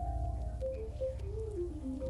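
Background music: a soft melody stepping down in pitch over sustained low notes.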